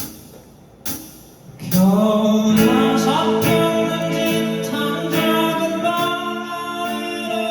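Live rock band playing in a concert hall: after a near-quiet moment broken by two drum hits, the full band comes in loud just under two seconds in, with sustained guitar and keyboard chords, cymbal and drum strikes and singing.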